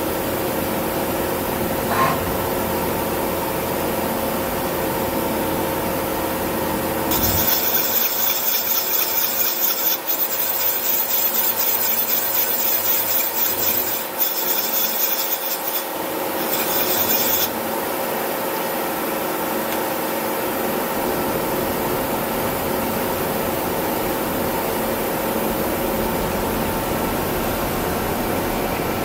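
Miyano BND-51S CNC turn-mill lathe running with a steady hum and fixed whining tones. About seven seconds in, a loud, high rasping hiss starts over it, lasts about ten seconds, then stops.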